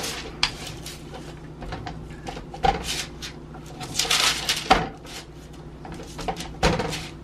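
Rolling pin working dough flat on parchment paper over a metal baking sheet: the paper rustling and crinkling, loudest in a long rustle about four seconds in, with several knocks along the way.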